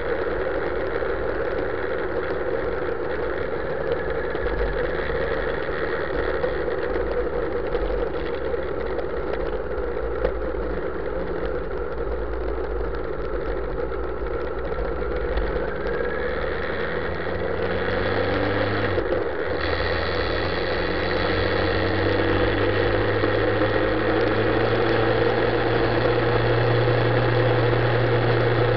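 Motorcycle engine pulling the bike along at low revs. About two-thirds of the way through it revs up, drops briefly at a gear change, then runs steadily at higher revs and louder as the bike speeds up on the open road.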